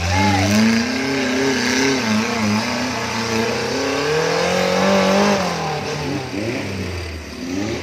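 Off-road 4x4's engine revving hard under load as it climbs a rutted mud track. The revs waver, rise to a peak about four to five seconds in, then fall away.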